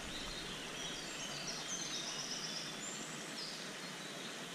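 Quiet outdoor ambience with a small songbird singing a run of high chirping notes for about three seconds.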